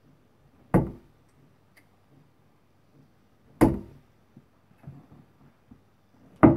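Three XQ Max darts thudding one after another into a Winmau bristle dartboard, about three seconds apart, each a single sharp thunk.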